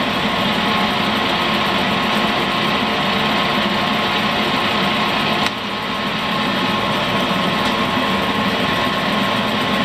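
Warner & Swasey No. 3 ram-type turret lathe running under power with its carriage power feed engaged: a steady mechanical hum and gear whine. A sharp click comes about five and a half seconds in, after which it runs a little quieter.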